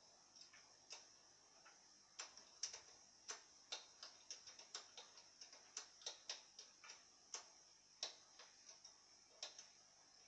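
Faint, irregular clicking and ticking, two or three sharp clicks a second, some louder than others, beginning about half a second in.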